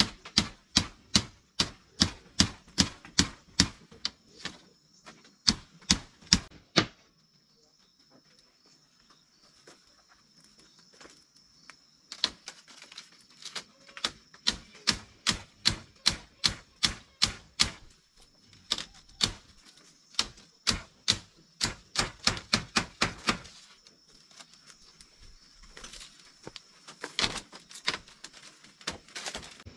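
Rapid, evenly spaced sharp knocks, about three a second, in runs: one at the start, a pause of several seconds, then a longer run and sparser knocks near the end. A faint steady high-pitched tone runs underneath.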